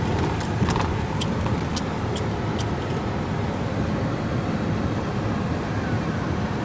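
Road and engine noise from a moving car: a steady low rumble, with a few light clicks in the first three seconds.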